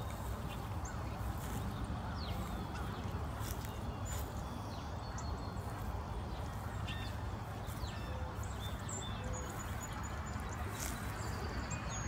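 Outdoor backyard ambience: a steady low rumble with faint, scattered short bird chirps and clicks over it.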